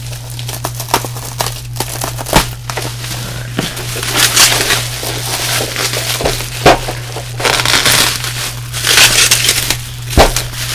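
Plastic bubble wrap crinkling and crackling as it is pulled off and crumpled by hand, in several rustling bursts, with a few sharp knocks in between.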